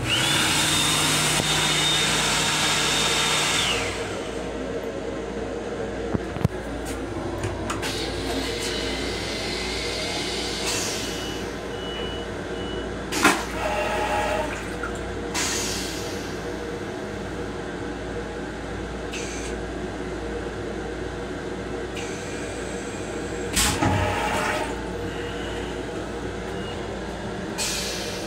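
Restroom hand dryer in an M7 railcar blowing for about four seconds with a steady whine, then cutting off. After that, the car's steady low running rumble continues, with a few sharp knocks.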